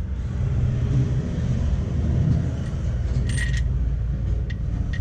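Steel bolts clinking together briefly as they are handled, about three and a half seconds in, over a steady low background rumble.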